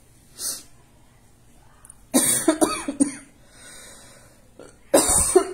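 A woman coughing: a fit of several coughs about two seconds in and another starting near the end. She is unwell.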